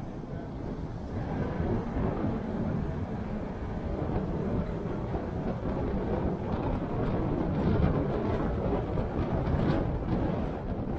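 Road noise of a car driving through city streets: a steady low rumble of tyres and engine that grows a little louder after about a second.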